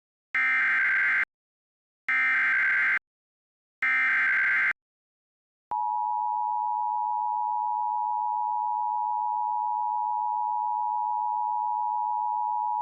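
Emergency Alert System activation: three bursts of screeching SAME digital header data, each about a second long with short silences between, encoding a Severe Thunderstorm Warning. Then, about six seconds in, the steady two-tone EAS attention signal (853 and 960 Hz together) begins and holds.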